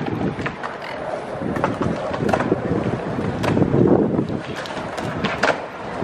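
Outdoor background noise: a gusting low rumble like wind on the microphone, with scattered sharp clicks and knocks.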